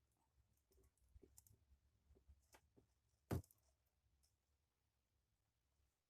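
Faint clicks and light taps of small parts being handled, with one sharper click a little over three seconds in.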